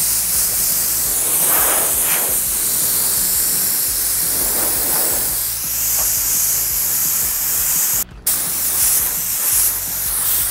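Gravity-feed spray gun hissing steadily as compressed air sprays a first coat of varnish. The hiss cuts out briefly about eight seconds in, then resumes.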